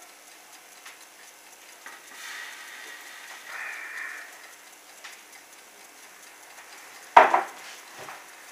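Soft breathy hiss for a couple of seconds after the last swallow of beer, then a single sharp knock about seven seconds in, the loudest sound, as the empty glass beer mug is set down, followed by a couple of faint knocks.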